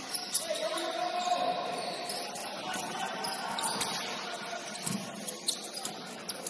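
Sound of a basketball game on a gym court: scattered short squeaks and clicks, a thump about five seconds in, and faint voices.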